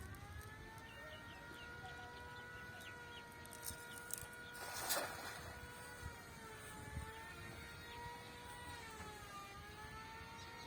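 A small engine drone runs steadily, its pitch sagging a little later on, with a brief rush of noise about halfway through.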